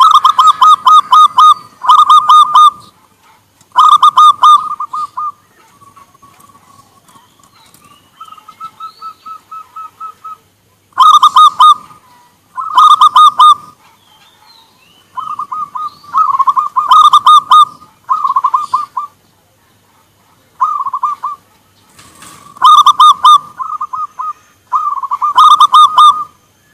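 Zebra doves (perkutut) singing their rapid staccato cooing phrases and answering one another. Loud phrases of about a second each alternate with fainter ones from a more distant bird.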